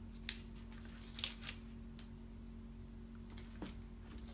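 Hands working a vinyl stripe decal onto a plastic football helmet shell: a few short, faint rustles and scrapes of fingers and decal backing, over a steady low hum.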